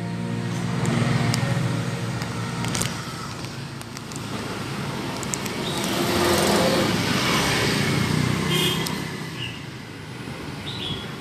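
Street traffic: motor scooters passing on the road, the noise swelling twice, about a second in and again around the middle.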